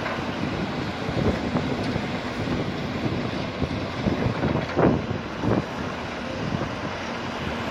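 A tracked excavator's diesel engine runs as it works its attachment through a heap of concrete demolition rubble. Wind buffets the microphone throughout. A couple of louder knocks of broken concrete come about five seconds in.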